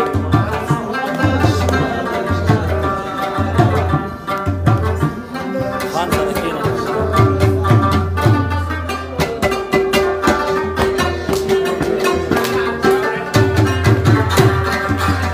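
Pashto folk music: a rabab plucked quickly over a mangi, a clay pot beaten by hand as a drum, which gives deep thuds in rhythm.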